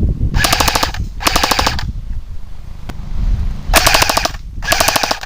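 Airsoft gun firing four short full-auto bursts of rapid clicking shots: two close together near the start, then two more about three and a half seconds in.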